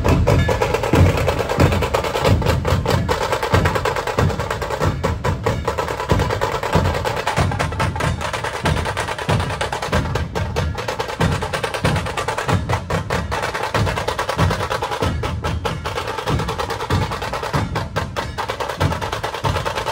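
A dhol-tasha ensemble playing: large barrel-shaped dhol drums beat a steady, regular low rhythm under the fast, sharp, rolling strikes of tasha kettle drums played with thin sticks.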